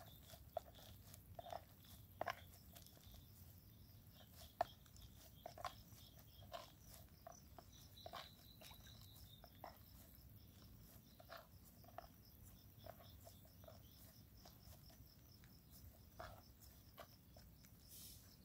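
Near silence: a faint steady insect trill, like crickets, with scattered soft ticks at irregular intervals.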